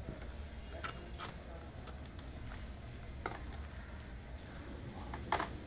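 Scissors snipping and hands handling a plastic bag wrapper: a few short crisp crinkles and snips, the loudest near the end.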